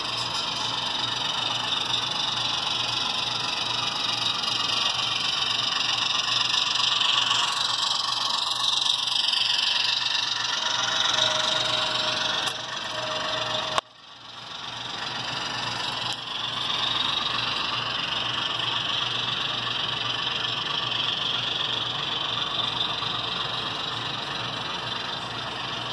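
Model train running on layout track: a steady rolling clatter of small wheels over rail joints, with a motor whine that rises and falls as the train passes. The sound drops out abruptly about halfway through, then builds back.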